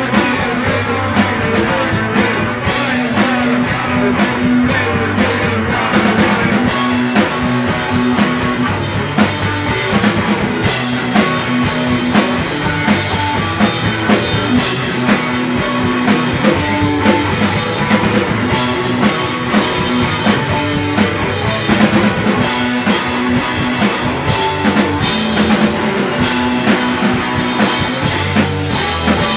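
Rock band playing live: drum kit and electric guitar in a steady, loud, driving groove.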